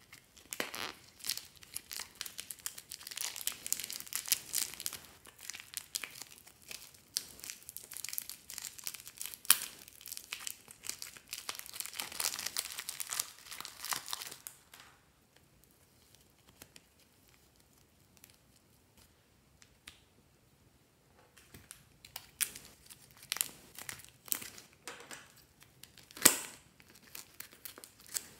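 Thin plastic bags crinkling and rustling as soft modelling clay is peeled out of them by hand. The crinkling goes on for about fifteen seconds, stops for several seconds, then returns as scattered crinkles with one sharp crackle near the end.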